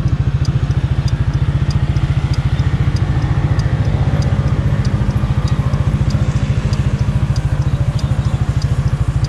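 Motor scooter engine idling steadily, with a light regular ticking about three times a second.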